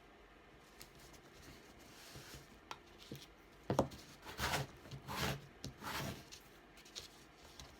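Paper rubbed in about four short strokes midway, with a sharp click just before them: a page being glued down with a glue stick.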